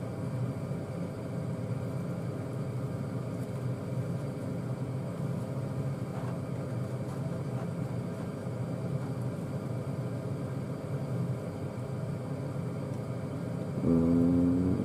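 Steady, even hum with a low droning noise from the electric cooktop heating the pot of cream stew at a simmer. About a second before the end a louder steady tone with overtones joins in.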